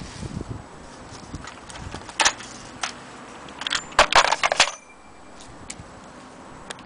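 Small metal parts and tools clinking and rattling against each other in short bursts: a few clinks a little past two seconds in, then a louder jangling run around the four-second mark.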